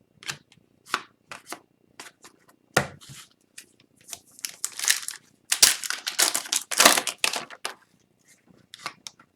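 Wrapper of an Upper Deck Extended Series hockey card pack being torn open and crinkled in the hands, a run of short crackles that grow thickest about halfway through.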